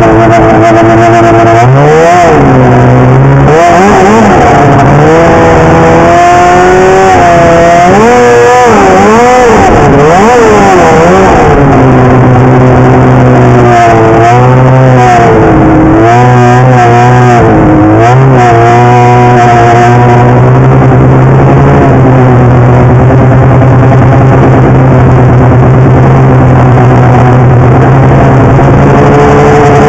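Polaris 800 snowmobile's two-stroke engine under varying throttle. Its pitch rises and falls over and over for the first twenty seconds or so, then it runs at a steady speed.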